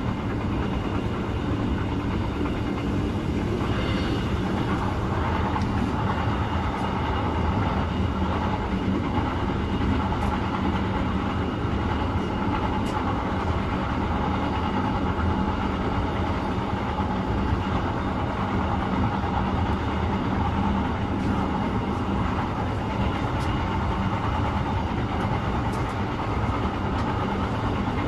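Passenger train running, heard from inside the carriage: a steady rumble of wheels on the rails, with a few faint clicks.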